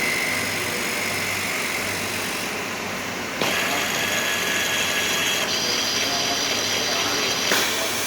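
Vacuum paint dosing machine running: a steady mechanical hiss with high motor whines that change abruptly about three and a half seconds in and again about two seconds later.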